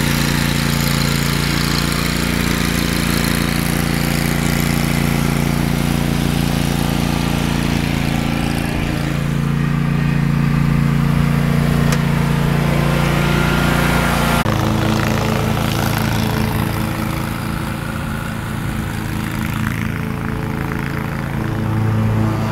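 Commercial lawn mower engine running steadily under load. The engine note changes abruptly about two-thirds of the way through.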